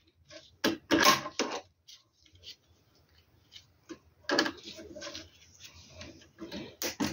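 Irregular clicks and clatter in several short bursts as battery cables and their connectors are handled and fastened to an inverter.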